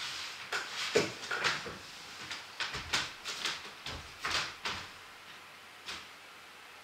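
About ten irregular knocks and bumps as a person gets up from a table and walks away, growing fainter and stopping about six seconds in.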